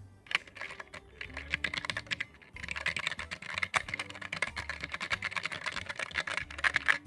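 Typing on an E-Dra EK384 mechanical keyboard with Huano red linear switches and ABS keycaps. The key presses are sparse for the first couple of seconds, then become fast, continuous typing. The key sound is light but crisp.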